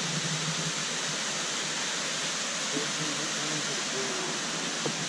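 Steady rushing of a stream flowing over rocks, an even hiss of water with no break.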